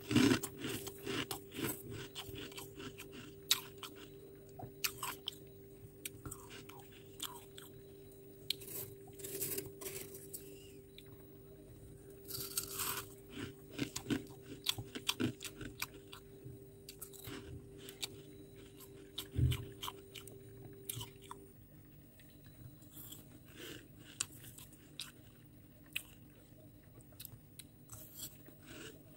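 Close-up crunching and chewing of mouthfuls of soft freezer frost: irregular, crispy crunches one after another. A faint steady hum sits under it and stops about two-thirds of the way through, and there is a single dull thump a little past the middle.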